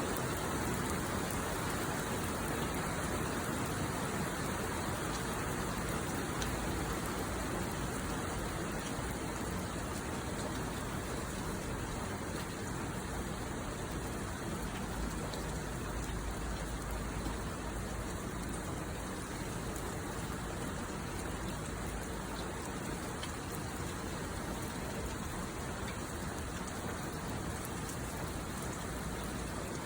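Heavy monsoon downpour falling steadily, a dense even hiss of rain with scattered individual drops ticking through it.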